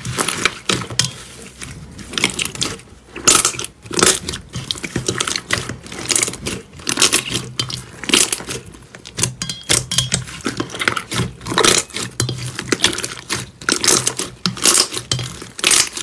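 Fluffy slime being kneaded and squeezed by hand in a steel bowl, making a dense, irregular run of wet crackles and squishes.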